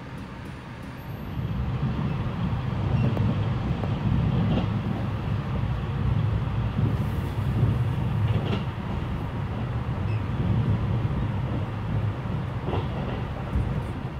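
E653-series electric train heard from inside the passenger car, a steady low running rumble that grows louder about two seconds in, with a few faint clicks from the wheels and rails.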